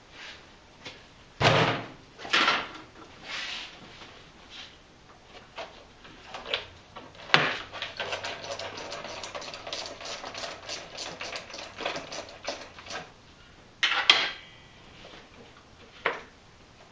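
Plastic air filter box being worked loose and lifted out of an engine bay by hand: several sharp knocks and clunks, then a run of rapid clicking and rattling in the middle, and two more knocks near the end.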